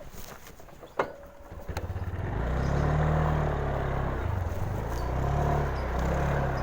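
A sharp click about a second in, then a Honda Genio scooter's small single-cylinder engine starts and keeps running, its pitch rising and falling a little with the throttle.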